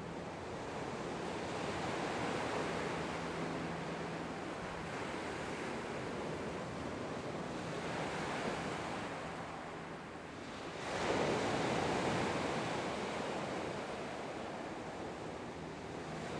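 Sea waves washing onto the shore, surging and ebbing every few seconds, with the biggest surge about eleven seconds in.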